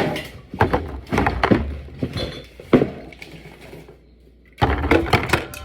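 Drink bottles and cans being placed on fridge shelves, knocking and clinking against each other and the shelves in a run of short, irregular knocks, with a short pause about four seconds in.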